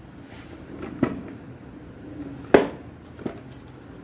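Cellophane-wrapped cardboard product box being handled and turned over by hand: three knocks, the loudest about two and a half seconds in.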